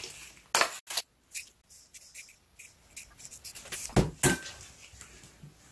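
A few light clicks and knocks with faint rustling from granular citric acid being measured into a stainless steel bowl over baking soda; the sharpest come about half a second in, about a second in, and twice close together around four seconds.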